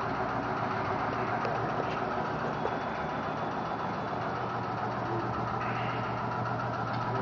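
A machine running steadily in the background, with a low hum.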